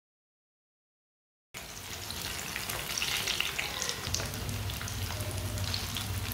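Silent for the first second and a half, then cucumber pakoras deep-frying in hot oil: a continuous sizzle with many sharp crackles as a metal spoon turns them in the pan. About four seconds in a steady low hum joins the sizzle.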